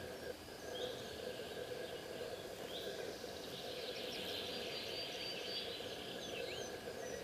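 Outdoor ambience with several small birds calling: scattered short chirps and quick falling whistles, busier twittering from about four seconds in, over a steady faint hum.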